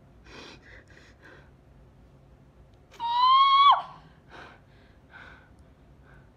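A young woman's gasping, crying breaths, then a loud high-pitched whimpering cry about three seconds in that holds for under a second and drops off sharply in pitch, followed by a few more gasping breaths: distress while she waits to see her exam result.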